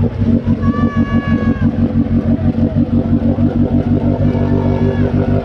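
Off-road vehicle engine running at a steady speed with a rapid, even pulse, and a brief high tone about a second in.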